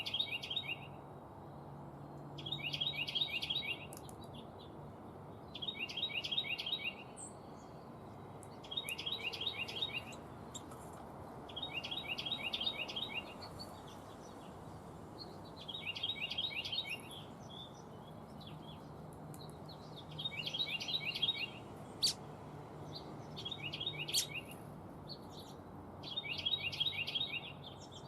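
A songbird sings a rapid, even trill, each phrase about a second long, repeated every two to three seconds. Two sharp clicks come about three-quarters of the way through, over a faint low hum.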